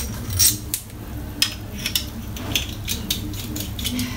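A series of light, sharp clicks and clinks of small hard objects being handled, irregularly spaced, over a steady low hum.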